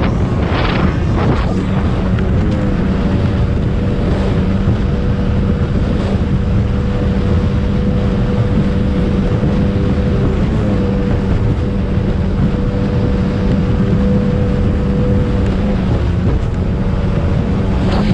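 Racing speedboat's engine running at steady high speed as the hull skims across open water, with wind buffeting the microphone. About a second in there are a couple of bursts of spray.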